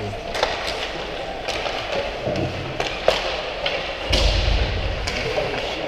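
Ice hockey play at the boards: scattered sharp clacks and knocks of sticks and puck, with a heavy low thump about four seconds in.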